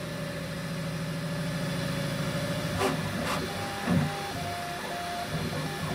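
Bambu Lab X1 Carbon 3D printer printing fast: a steady motor and fan hum for the first few seconds. Then come two sharp clicks just before halfway, and short high tones that switch pitch as the print head changes moves.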